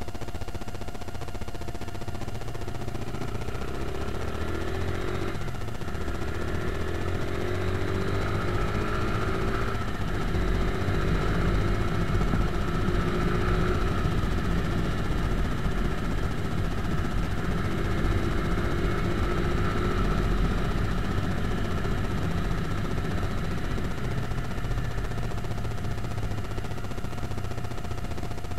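Motorcycle engine running while riding, its pitch rising and falling as the bike speeds up and slows down, louder about a third of the way in and again past the middle.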